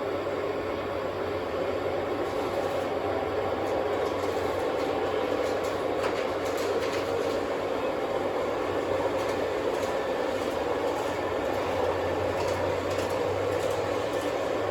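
O gauge model trains running on the layout's track: a steady rumble of electric motors and wheels with a low hum and a few faint clicks.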